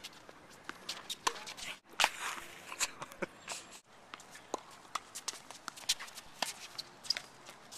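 Tennis being played on a hard court: quick footsteps and sneaker scuffs on the court surface, with scattered sharp hits of the ball off rackets and the court, the loudest about two seconds in.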